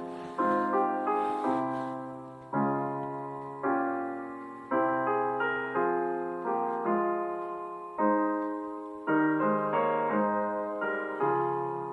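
Slow, gentle piano music: soft chords struck about once a second, each ringing out and fading before the next.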